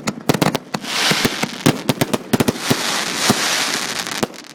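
A bundle of consumer (Class C) fireworks fused together with quick match going off all at once. A rapid, irregular string of sharp bangs and cracks runs over a sustained hissing fizz, and it all stops suddenly near the end.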